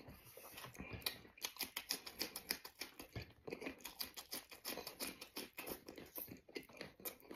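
Close-up eating sounds: wet chewing and lip smacking on a mouthful of braised pork belly, mixed with crisp crunching bites into a raw red chili pepper. Many quick clicks follow one another for most of the time.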